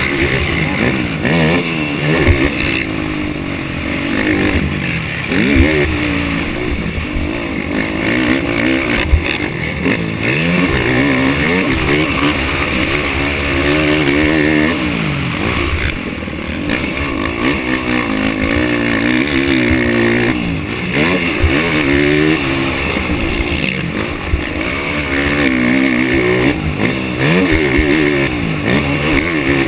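Racing ATV engine revving up and backing off again and again, its pitch climbing and dropping every few seconds under hard throttle.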